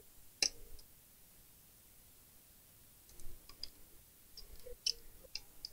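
Small sharp clicks and ticks of a tool picking hardened glue off a TV power supply board: one sharp click about half a second in, then a run of smaller clicks over the last two or three seconds.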